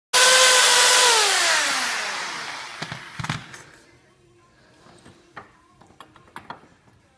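An electric power tool's motor, already at speed when the sound starts abruptly, runs for about a second and then spins down with falling pitch, fading over a couple of seconds. A few metal knocks follow, heaviest about three seconds in, then lighter clicks and clinks as a propshaft yoke is handled in a bench vise.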